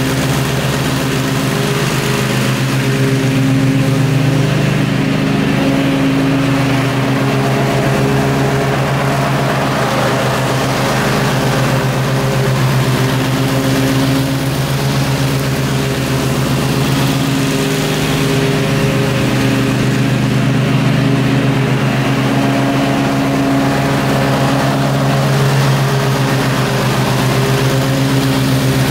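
Gravely zero-turn riding mower's engine running steadily at cutting speed with the deck engaged, mowing thick grass; the pitch rises and falls slightly as the mower turns and works.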